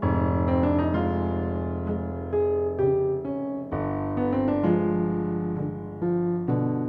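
Piano accompaniment playing slow held chords under a melody, with a deep bass note coming in about halfway through.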